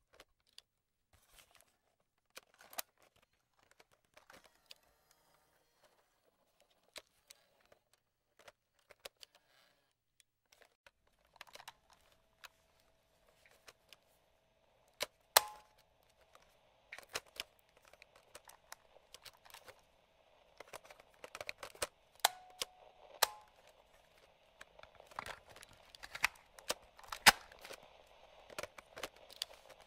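Clicks of the slide switches and buttons on a vintage radio and cassette recorder: scattered sharp clicks, then from about halfway light radio static joins in under further, louder clicks.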